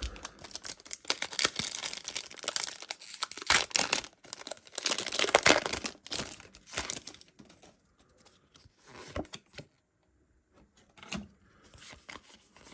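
Foil wrapper of a Pokémon trading-card booster pack being torn open and crinkled in the hands: dense tearing and crackling for about the first six seconds, loudest after about four seconds, then a few sparser crinkles.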